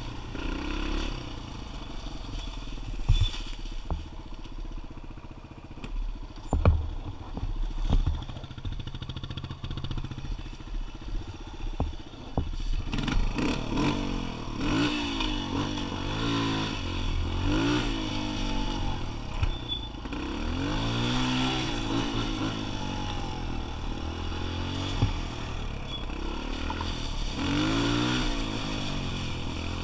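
Kawasaki KLX125's single-cylinder four-stroke engine under way, held at low throttle with a few sharp knocks and clatters in the first half, then revving up and down over and over from about halfway on.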